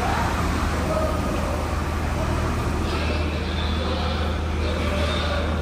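Heavy-equipment engine running with a steady low drone under a wash of broad mechanical noise.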